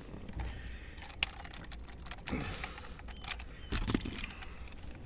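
Handling of a fish lip grip and hanging scale while weighing a bass: small metal and plastic clicks, rattles and rustling. There is a sharp click about a second in, and duller bumps at about two and a half and four seconds.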